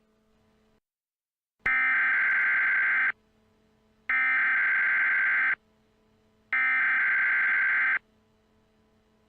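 Emergency Alert System SAME header: three identical bursts of screechy digital data tones, each about a second and a half long with about a second's pause between them, the encoded header that opens an EAS alert. A faint low hum sits under the pauses.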